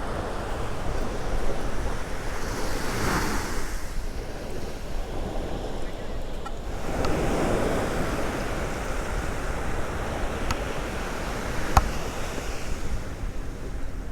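Gentle surf washing onto the beach in swells, with wind buffeting the microphone. Two sharp clicks come near the end.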